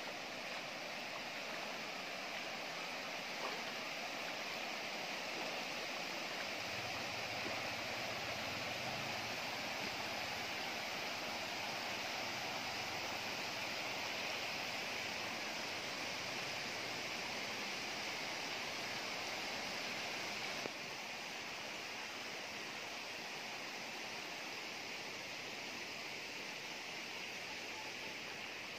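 Floodwater flowing over a road and its grassy edge, a steady rushing wash that drops a little in level about two-thirds of the way through.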